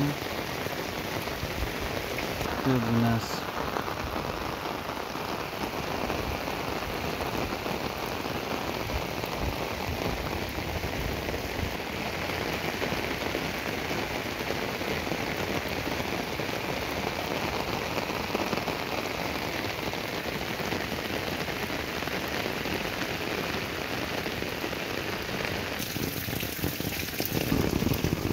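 Steady rain falling on flooded, waterlogged ground and pavement. It grows louder near the end.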